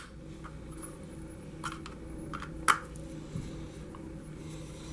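A few faint, sharp clicks and taps of a small screwdriver and plastic parts as the two dust-cover screws of an RC truck are driven in. The sharpest click comes a little past halfway, over a steady low hum.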